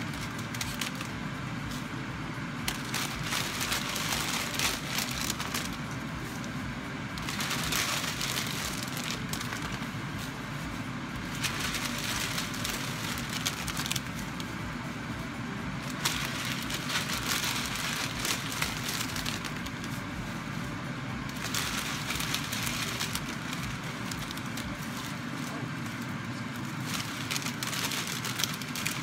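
Pan of vegetables simmering and sizzling in soy-sauce broth, with the crinkle and crackle of a plastic bag and dry egg noodles as the noodles are dropped in by hand. Over a steady low rumble, the hissing, crackling noise swells and fades every few seconds.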